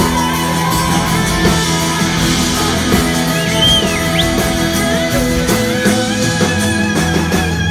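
Live band playing, with electric guitar, a drum kit and a Hammond organ, and no clear singing.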